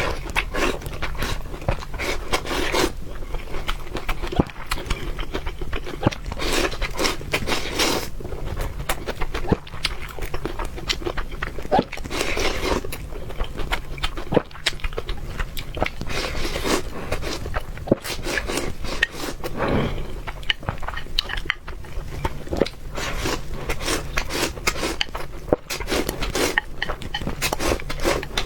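Close-miked eating sounds: a person chewing and biting braised fish, with many irregular short clicks and mouth noises.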